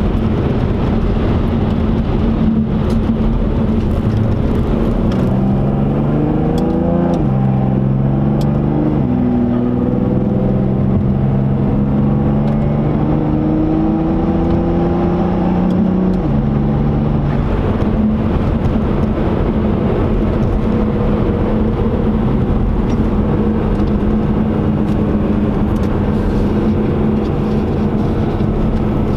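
Volvo V60 Polestar's engine heard from inside the cabin under hard acceleration. It cruises steadily, then revs climb from about five seconds in. The gearbox shifts up twice, and the engine settles back to a steady cruise about sixteen seconds in.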